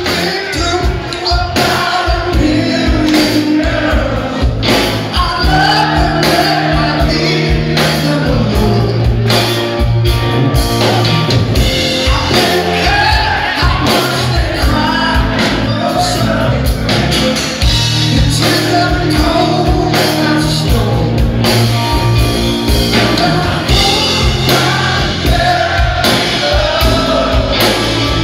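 Live rock band playing loudly: a male lead singer over distorted electric guitar, bass guitar and drums.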